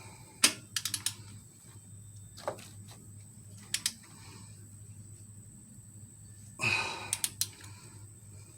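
Scattered sharp clicks and light metal taps from a torque wrench and socket being worked on the Jeep 4.0 engine's cylinder head bolts, with a short heavy breath a little before seven seconds in.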